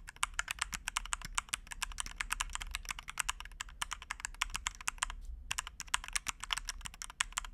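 Fast typing on a MelGeek Made-series mechanical keyboard: a quick, continuous run of key clicks, with a brief pause about five seconds in.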